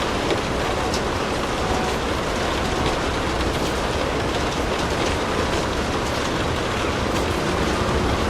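Steady rain falling, an even hiss with a low rumble underneath and a few faint crackles standing out from it.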